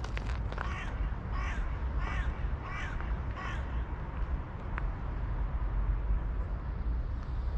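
A crow cawing five times in quick succession, about 0.7 s apart, in the first half, over a steady low outdoor rumble.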